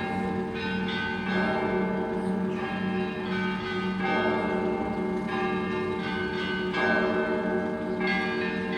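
Russian Orthodox church bells rung together: several bells of different pitches struck in a repeating pattern, a fresh set of strikes about every second or so, their tones ringing on over a steady low bell tone.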